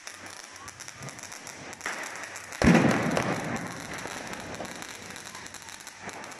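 Ground firework fountain hissing and crackling as it sprays sparks, with one sudden loud bang about two and a half seconds in that dies away over the next second or so.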